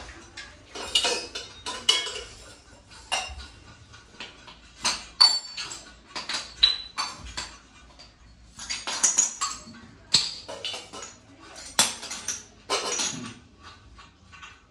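Brass kitchen utensils clinking and clanking against each other as they are handled and set down: a dozen or more irregular metallic knocks, some ringing briefly.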